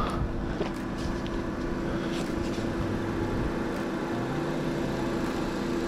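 A steady, low engine hum with a few faint clicks over it.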